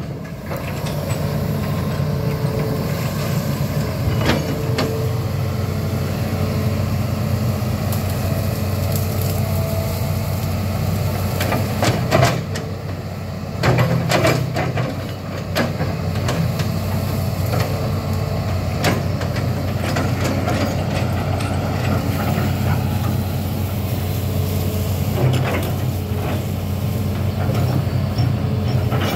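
Hitachi amphibious excavator's diesel engine running steadily under work as it swings the boom and digs with the bucket, with occasional sharp knocks.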